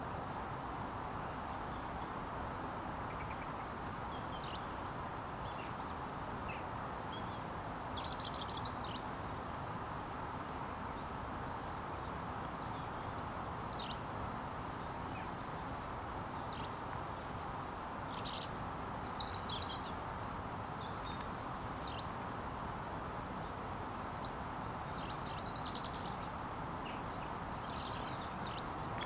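Steady outdoor background noise with small birds chirping on and off in short, high calls. The loudest run of chirping comes about two-thirds of the way through.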